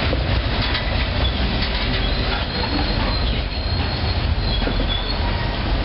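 Ballast hopper cars of a freight work train rolling past close by: a steady rumble of steel wheels on rail, with thin high squeals now and then.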